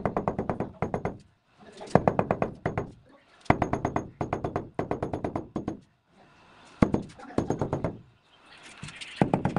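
A cloth-padded wooden pole tamper knocking rapidly on a marble floor slab, tamping it down into its mortar bed. It comes in quick runs of knocks, each about a second long, with short pauses between them.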